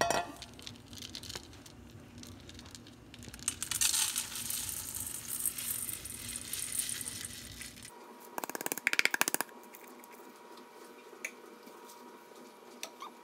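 Soy wax beads poured from a plastic measuring jug into a stainless steel bowl, a rattling pour of small pellets lasting a few seconds. About eight seconds in, a quick burst of rattling clicks follows, then a few scattered ticks.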